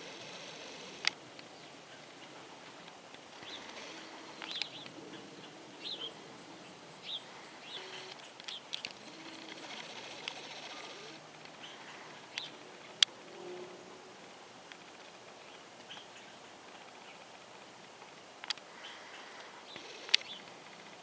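Outdoor ambience of birds chirping in short, scattered calls, broken by a few sharp clicks, the loudest about a second in, near the middle and twice near the end. A faint, steady, very high whine runs underneath.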